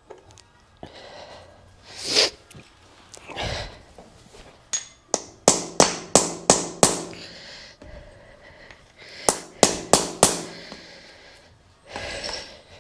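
Sharp metallic taps in two quick runs, seven about a third of a second apart and then four more after a pause, each with a short ring, after a couple of softer scrapes: steel being knocked while the cut kickstand pieces are set up for welding.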